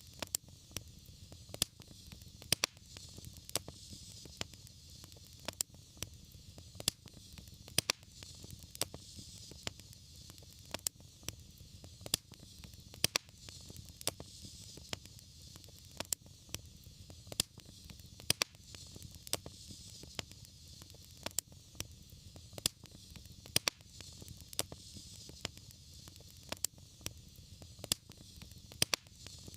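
Wood fire crackling, with frequent sharp irregular pops over a steady hiss and a low rumble.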